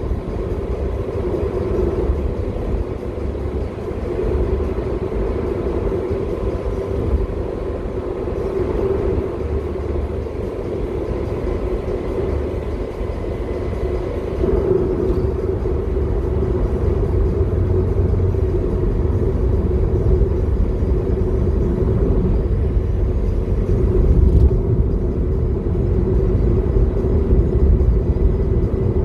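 Car driving at road speed, a steady rumble of engine and tyre noise that grows a little louder about halfway through.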